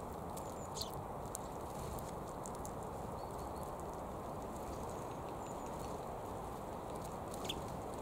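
Eurasian tree sparrows feeding on sunflower seeds at a stump feeder: scattered light pecking clicks and two brief chirps, one about a second in and one near the end, over a steady low background rumble.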